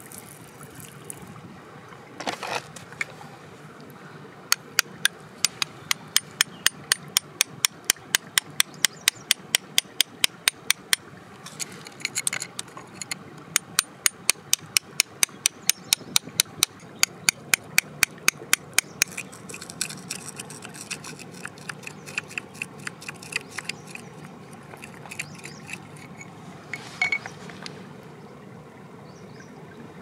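Sharp, even taps of a metal tool on hard rock or stone, about three a second. They come in two long runs with a short break between, then turn fainter and scattered, over a steady low hiss.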